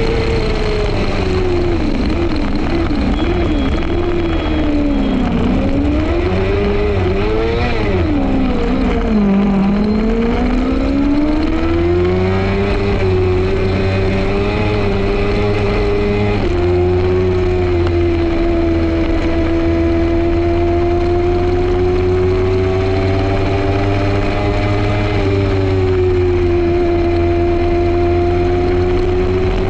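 F2 racing sidecar's engine heard on board, its pitch dropping and climbing repeatedly through gear changes and corners for the first ten seconds or so, then rising and holding a nearly steady high speed with only slight changes.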